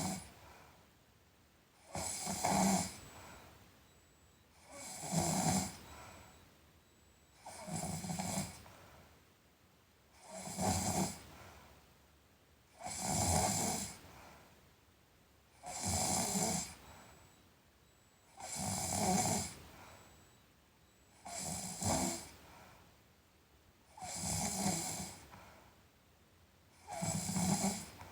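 A sleeping person snoring in a steady rhythm, one snore about every two and a half to three seconds, each about a second long.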